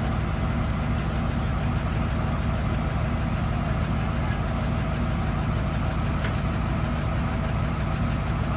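Heavy tow truck engine running steadily at a constant speed, a low drone with no change in pitch or level.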